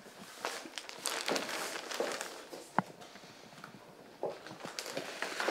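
Rustling and handling noise with scattered light clicks and knocks, and one sharp click a little under three seconds in.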